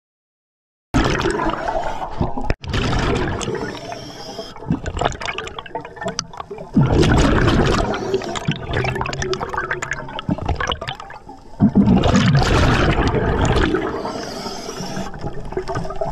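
Scuba diver breathing through a regulator underwater: loud rushes of exhaled bubbles, surging about every five seconds, beginning about a second in.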